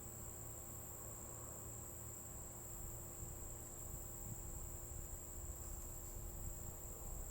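Crickets trilling faintly and steadily, one continuous high-pitched chirr, over a low background rumble.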